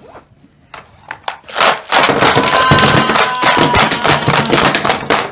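Small plastic action figures clattering and rattling against each other and the toy wrestling ring's frame as the crammed ring is shaken hard. The rattling starts about a second and a half in as a dense, fast run of knocks.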